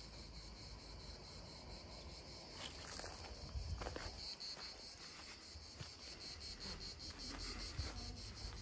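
Insects chirping steadily in a high, continuous shrill that takes on a fast, even pulsing about two and a half seconds in, with a few soft rustles around three to four seconds in.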